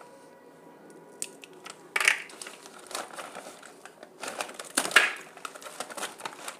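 Thin plastic sheet crinkling and crackling as a cooled, brittle slab of jaggery-and-chickpea chikki is peeled and lifted off it, with sharp little clicks and snaps; loudest about two seconds in and again around five seconds.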